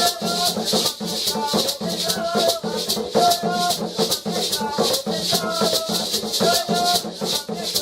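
Instrumental Caribbean folk music: maracas shaken in a steady beat of about four strokes a second under a plucked-string melody.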